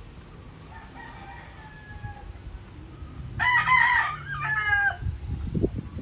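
Gamefowl rooster crowing, a loud cock-a-doodle-doo about halfway through, with a fainter crow from another rooster earlier on. A few low thumps follow the loud crow.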